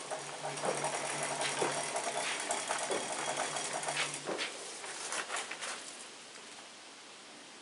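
Wood-Mizer LT15 sawmill head travelling along its track: a steady whirring hum with clicks and rattles, which stops about four seconds in.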